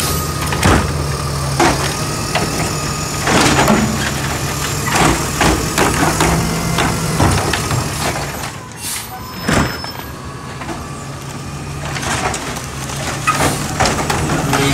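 Automated side-loader garbage truck's diesel engine running steadily, with repeated clanks and knocks as its hydraulic arm grabs a trash cart and lifts it to dump; a sharp knock comes about ten seconds in.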